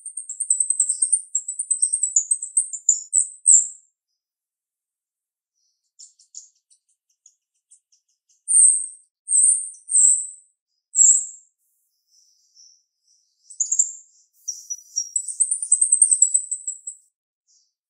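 Female jalak rio-rio, a caged starling, singing sharp, very high chattering notes in three bouts: a long rapid run at the start, four separate notes around the middle, and another rapid run near the end.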